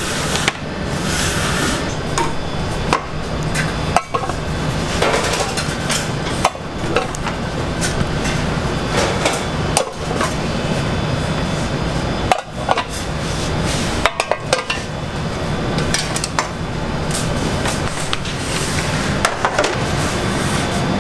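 Bakery kitchen work: frequent sharp knocks and clacks of trays, pans and utensils over a steady low hum.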